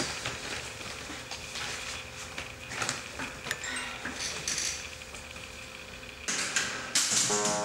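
Office room tone with a steady faint hum and scattered small clicks and clinks at a desk. About six seconds in, louder, quicker clicking and rustling begins, and music with held notes comes in near the end.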